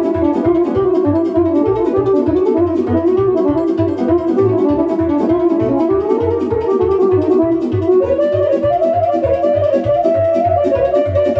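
Weltmeister piano accordion playing a fast Romanian sârbă: a quick running right-hand melody over a steady, rapid bass pulse. The melody moves up into a higher register about eight seconds in.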